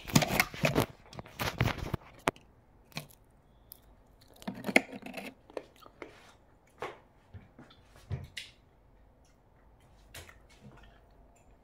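Handling noise from a phone camera being held and set down: scattered clicks, light knocks and short rustles, busiest in the first two seconds and again about five seconds in.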